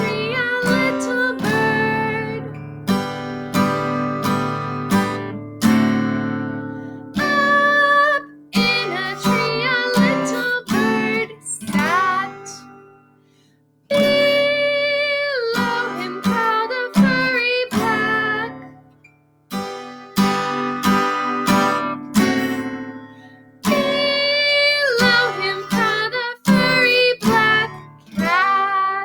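Acoustic guitar accompanying a call-and-response children's song, with a sung melody in places and short gaps between phrases.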